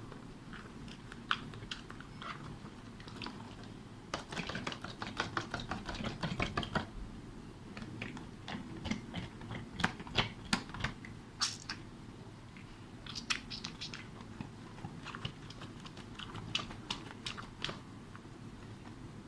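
Slime being worked: a dense run of quick sticky clicks and crackles for a few seconds, then scattered clicks and pops.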